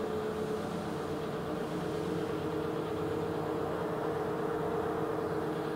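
Marvel Series 8 Mark II vertical bandsaw running with no workpiece, its blade and variable-speed drive giving a steady, quiet hum with a steady mid-pitched tone.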